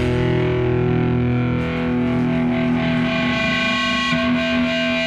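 Rock music: distorted electric guitar through effects, with held notes ringing steadily.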